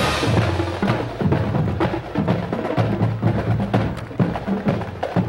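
Marching band drum line playing a street cadence: quick snare strikes and rim clicks over pitched bass drum tones. It starts with a sharp hit as the band's melody stops.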